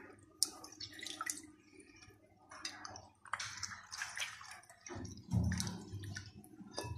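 Hands swishing and rubbing raw chicken pieces in a bowl of water, with intermittent splashing and squelching. There is a sharp click shortly after the start and a duller thump about five seconds in.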